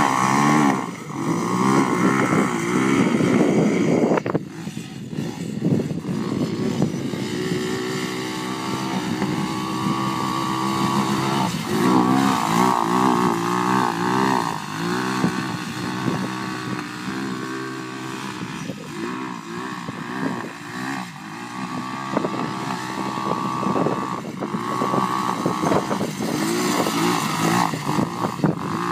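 Small ATV engine revving up and down again and again as the quad slides around on snow, its pitch rising and falling with the throttle.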